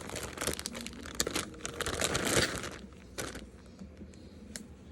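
Packaging crinkling and rustling as doll clothes are handled and unwrapped. It is dense for the first few seconds, loudest a little past two seconds in, then there is a single click and softer handling.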